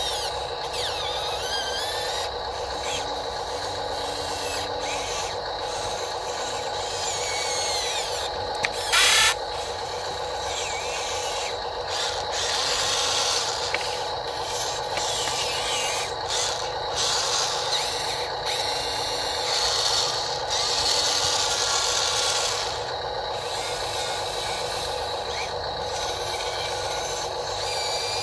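Electric motors and gearboxes of an RC Volvo excavator running as it digs and loads dirt: a steady hum with higher whines that rise and fall as the arm and bucket move. A short, loud rasping burst about nine seconds in.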